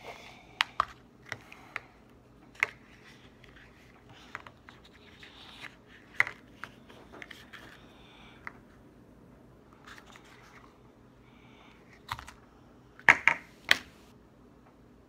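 Handling noise from hands working close to the microphone: scattered sharp taps and clicks, with faint rustling between them and a louder burst of clicks near the end.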